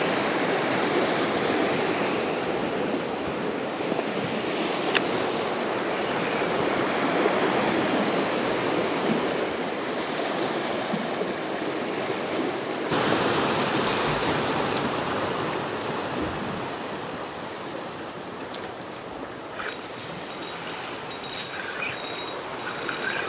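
Ocean surf washing around shoreline rocks: a steady rushing noise. In the last few seconds there is a run of light, sharp clicks from a spinning reel being cranked.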